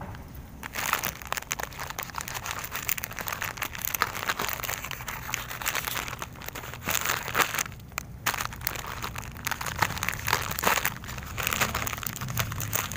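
Plastic instant-noodle packet crinkling as it is slit open with a knife and handled: a dense run of crackles, with a short lull about two-thirds of the way in.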